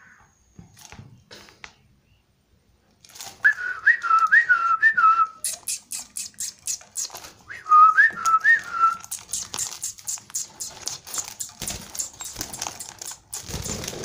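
A person whistles a short phrase of about five rising-and-falling notes to caged budgies, then repeats it more briefly a few seconds later. A rapid run of sharp, high chirps and clicks starts between the two phrases and carries on, turning into scuffling near the end.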